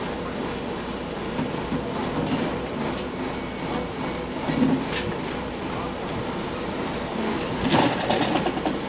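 Heavy machinery running steadily, with a knock about halfway and a short run of metallic clanks and squeaks near the end, from a mobile crane at work recovering a stranded truck.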